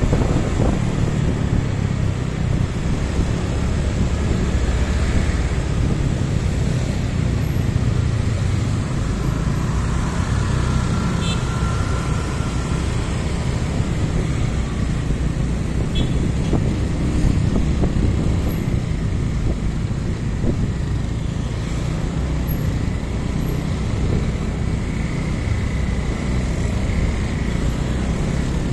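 Steady low rumble of a motorcycle being ridden through slow city traffic: its engine and road noise, with other cars and scooters running close by.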